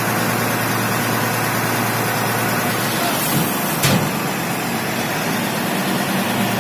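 Tipper lorry's diesel engine running steadily while it tips its load, with M-sand pouring out of the tailgate onto the ground. A single brief knock about four seconds in.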